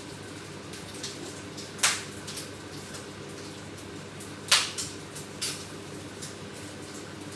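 Kitchen clatter: two sharp knocks of cookware or a bottle being handled, about two seconds in and again about four and a half seconds in, each followed by a few lighter clinks, over a steady low hum.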